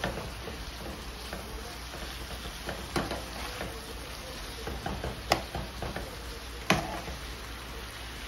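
Ground beef, almost done, sizzling in a pan while it is stirred. A utensil knocks against the pan three times, about three, five and nearly seven seconds in.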